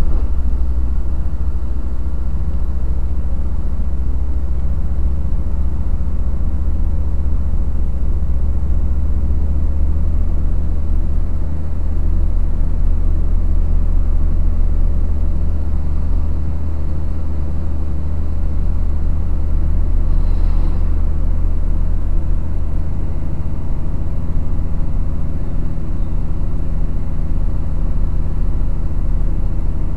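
Truck engine running steadily at low road speed, a constant low rumble heard from inside the cab.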